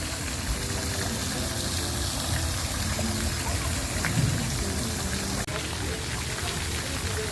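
A steady hissing noise, with faint voices and other sounds underneath.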